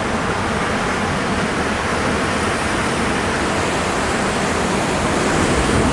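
Steady rush of ocean surf on a rocky shore, an even unbroken noise.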